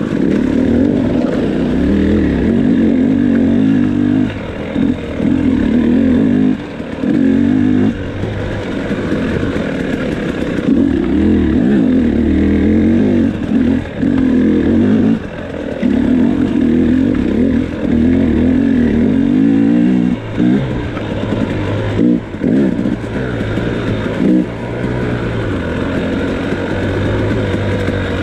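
2018 KTM 300XC's 300 cc two-stroke single-cylinder engine revving hard and falling back over and over as the bike is ridden along a rough trail, with the throttle shut off briefly every few seconds.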